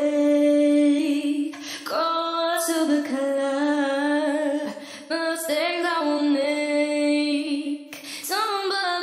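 An isolated, unaccompanied female lead vocal track singing long held notes with vibrato, with short hissing consonants at the start of a few phrases.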